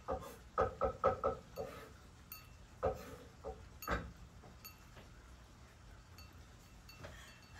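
Cat eating wet food from a ceramic bowl: a quick run of wet chewing and lapping sounds in the first second or so, then scattered single ones, with light clinks against the bowl.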